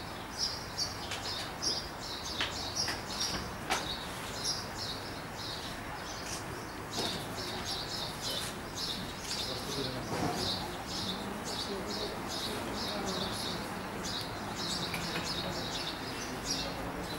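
Many small birds chirping at once: a continuous twitter of short, high calls, many overlapping, with no pause.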